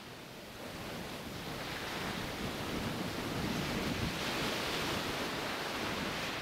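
Gulf of Mexico surf washing in around the pier, a steady rush of small waves that grows louder over the first few seconds.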